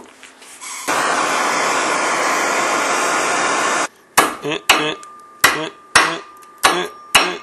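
A handheld propane plumber's torch hissing steadily on a thin hacksaw blade for about three seconds. Then a framing hammer strikes the hot blade over the sharp edge of a steel shop vise about six times, each blow a sharp metallic clank with a short ring, bending the blade into a sharp 90-degree bend.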